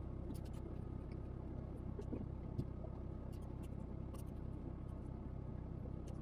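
A steady low hum with scattered faint clicks and ticks, heard inside a small boat's cabin; one tick about two and a half seconds in stands out a little.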